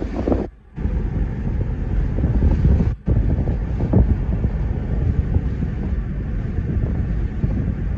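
Car driving along a paved road, heard from inside: a steady low rumble of road and wind noise. The sound drops out briefly twice, about half a second in and again at about three seconds.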